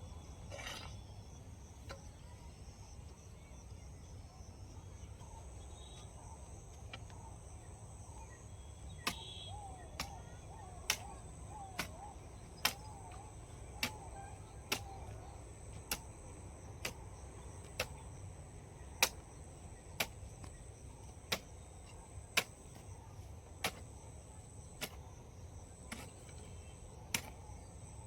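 Sharp knocks repeating about once a second from roughly nine seconds in, over a steady high insect drone and a low hum.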